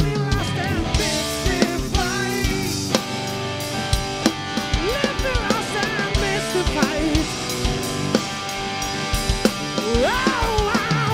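Live blues-rock band playing an instrumental passage: a drum kit keeps a steady kick-and-snare beat under bass and a lead melody with bent notes, including a sharp upward bend near the end.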